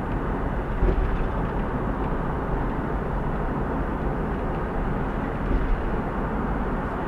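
Steady road and wind noise of a van driving at freeway speed.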